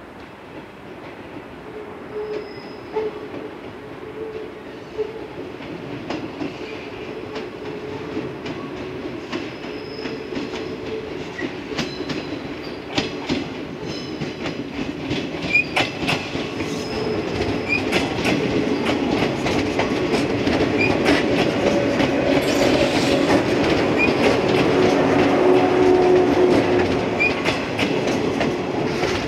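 Yellow electric multiple-unit train, Okayama depot set A03, approaching and passing close by. Its wheels click over rail joints and points, with short high squeals. The sound grows steadily louder and peaks as the cars go past near the end.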